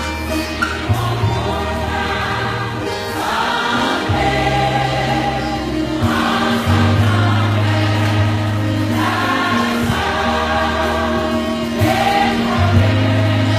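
A church congregation and choir sing a Haitian Creole gospel worship song with band accompaniment, over a bass that holds long notes.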